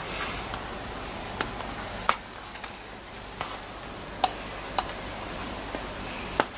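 A plastic sheet being bent by gloved hands around a wooden board held in a bench vise: about half a dozen short, sharp clicks and taps of the plastic and gloves against the board and vise, spread unevenly, over a steady hiss.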